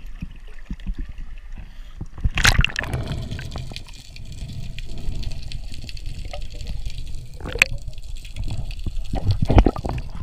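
Sea water splashing and sloshing as a spearfisher gets into the water beside the boat, with a loud splash about two and a half seconds in, then muffled underwater sloshing and gurgling.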